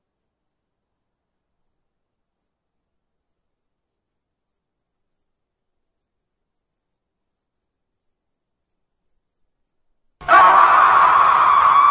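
Near silence for about ten seconds, then a sudden loud monster roar sound effect that holds steady.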